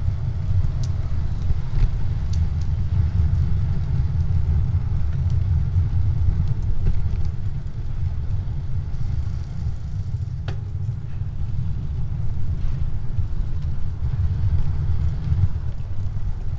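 Steady low rumble of a vehicle on the move: engine and road noise picked up by the drive recorder mounted on it.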